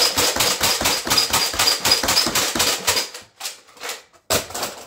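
Nerf Alpha Trooper pump-action dart blaster slam-fired as fast as possible: a rapid run of plastic clacks from the pump and plunger for about three seconds, then a few scattered clicks and a short rattle near the end.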